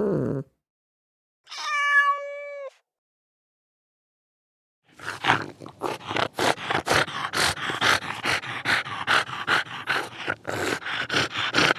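Domestic cat meowing: the end of one arched meow, then a short high meow that rises and holds. After a pause, rapid rhythmic breathy panting starts, about four breaths a second.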